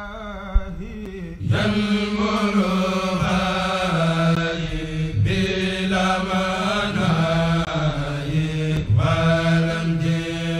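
Intro theme music: a wavering melody in long phrases over a steady low drone, each phrase starting afresh roughly every four seconds.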